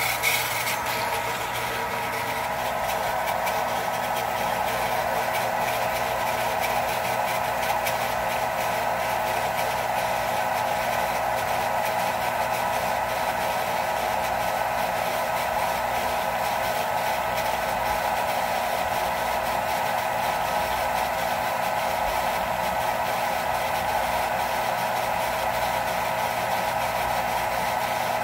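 Jet pump motor running steadily as it builds pressure in the tank, a constant hum with no clicking or chatter. The check valve that caused the clicking has been taken out of the line.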